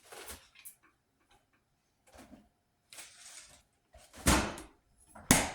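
Kitchen handling clatter: several light knocks and rustles, then two louder thuds about a second apart near the end.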